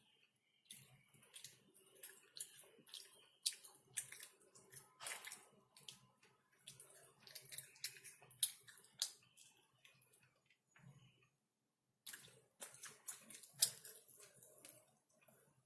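Close-miked wet chewing and mouth sounds of eating Nando's chicken: a dense run of small sticky clicks and crackles, pausing briefly about eleven seconds in.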